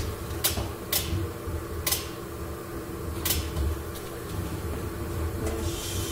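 A chain-pull frame straightener tensioning a crash-damaged Lancia Delta Integrale's frame: a few sharp, irregular metallic clicks, about four in the first three and a half seconds, over a steady low hum.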